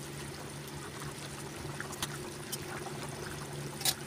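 Tomato fish-curry broth boiling hard in a pan, a steady bubbling over a low hum, with a few faint ticks and one sharper click near the end.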